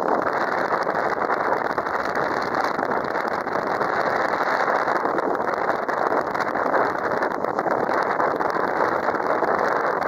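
Steady wind noise from the strong wind ahead of an approaching typhoon blowing across the microphone, beside choppy river water.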